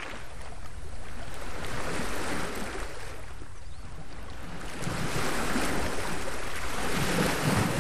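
Sea surf washing on a beach: a steady rush that swells, eases about three seconds in, and swells again.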